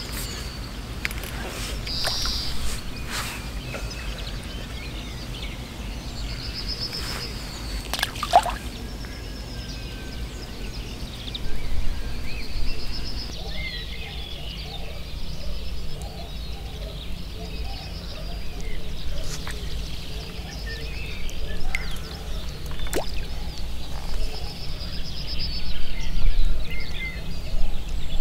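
Riverside ambience: a songbird repeats a short, high trilled phrase every few seconds over a steady low rumble, with light sloshing of water and a few sharp clicks, the loudest about eight seconds in.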